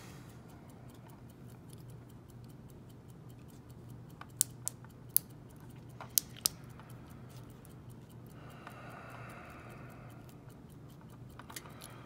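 Five small, sharp clicks in quick succession, from a brass padlock cylinder and plug being worked by hand as a plastic plug follower is pushed in to gut the lock, over a faint steady hum.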